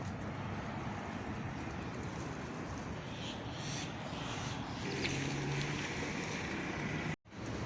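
Steady outdoor background noise with no clear single source; a faint low hum joins it about five seconds in, and the sound cuts out for a moment near the end.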